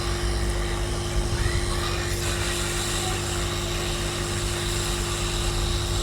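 Hot air rework station blowing steadily, with a constant hum. It is heating solder paste under a phone's charging jack.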